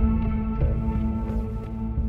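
Ambient background music: a low sustained drone with held tones above it and a few soft note changes.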